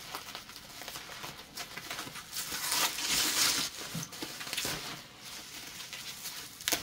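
Bubble wrap crinkling and rustling as hands pull and peel it away, loudest in the middle, with a sharp snap near the end.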